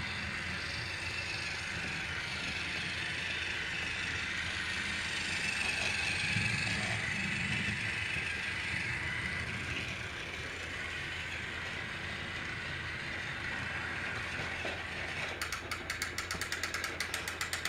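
Battery-powered Trackmaster toy train's motor and plastic gears whirring steadily as it runs along the plastic track. Near the end comes a rapid clicking, about five clicks a second.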